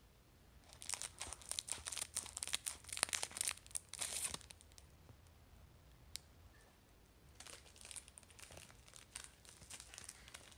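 Shiny foil wafer wrapper crinkling and tearing as it is pulled open by hand. The rustling is densest and loudest from about one to four seconds in, with a lone click a little later and lighter crinkling near the end.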